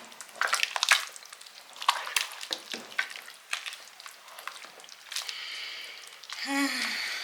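A spoon stirring and scraping in a pot of soup, with a run of sharp clinks and knocks against the pot.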